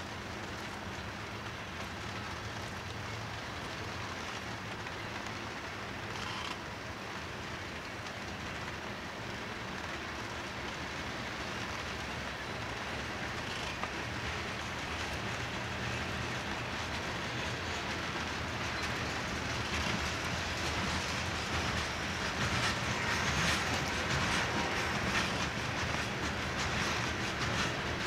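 BNSF freight train rolling past, the steady rumble of its cars with steel wheels clicking on the rails, growing gradually louder and busier with clicks toward the end.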